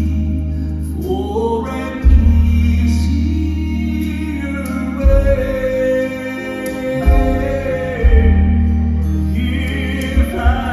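Male Southern gospel quartet singing in harmony through microphones, with long held notes over a deep bass line.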